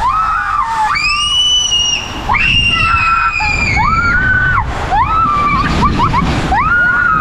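Water-park din: a run of high-pitched held shrieks and screams, one after another, over a steady wash of splashing water.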